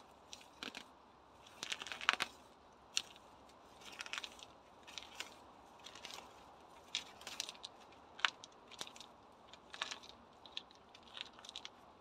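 Weeds being pulled by hand from among loose river pebbles: irregular clicks of stones knocking together and short scraping rustles, the loudest about two seconds in.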